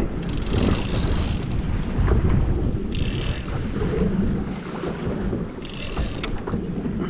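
Wind buffeting the microphone on a boat at sea, a constant low rumble, with three short hissing bursts of water splashing or spray.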